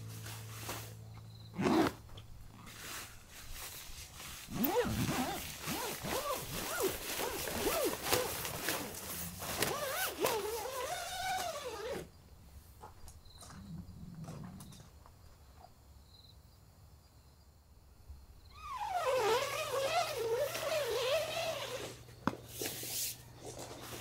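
A tent door zipper being drawn shut, a fast rasping run of teeth whose pitch wavers with the pull, lasting several seconds. A second, shorter zipping run follows after a quiet stretch near the end.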